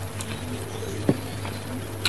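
Close-up eating sounds: a person chewing and sucking on spicy chicken feet with small wet mouth clicks, and one sharp click about a second in, over a low steady hum.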